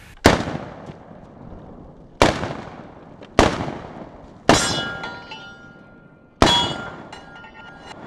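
Five shots from a Panzer BP-12 semi-automatic 12-gauge shotgun, one to two seconds apart, each fading slowly. A struck steel target rings under the later shots.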